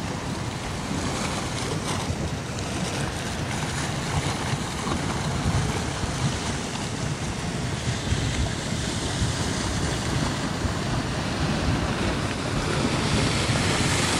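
Fast-flowing, mud-laden flash-flood water rushing steadily, with wind buffeting the microphone.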